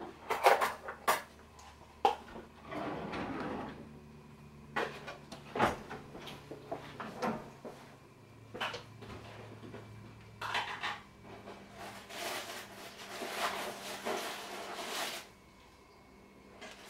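Pastry brush and utensils clinking and scraping against a stainless steel mixing bowl and a roasting pan while glaze is brushed onto meatloaf: several sharp clinks in the first few seconds, then a longer stretch of scraping later on.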